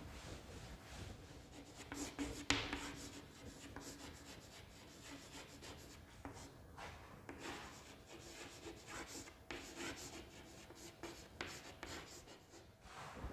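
Chalk writing on a blackboard: faint, irregular scratching strokes and taps, with one sharper tap about two and a half seconds in. First a cloth duster wipes across the board.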